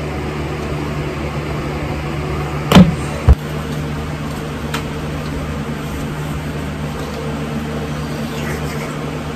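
A steady low hum, with two short knocks close together about three seconds in.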